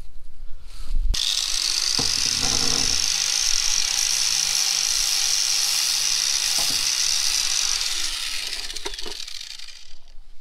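Electric angle grinder starting up about a second in and grinding steadily into the chipped front of a fibreglass sailboat keel, opening up the rock damage down to the fibreglass. It is switched off near the end and winds down.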